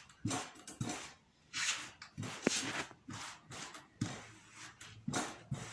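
A heavy brazier-heated hand iron pushed in repeated strokes across a woven alpaca poncho on a wooden table: rubbing swishes with soft knocks as the iron is set down and moved, and a brief squeak about halfway through.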